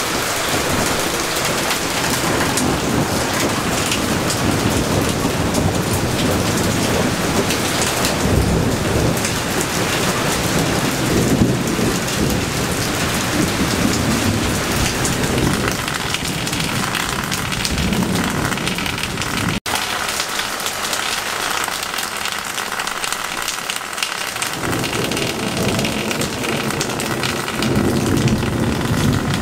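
Heavy rain pouring steadily onto garden foliage and wet paving, with low rolling thunder rumbling through much of it. The sound breaks off for an instant about twenty seconds in, and the rumble is weaker for a few seconds after that.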